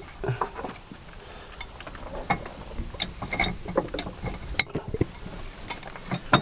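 Hand tools and metal steering parts being handled, with irregular metallic clicks and clinks and one sharp clack about four and a half seconds in.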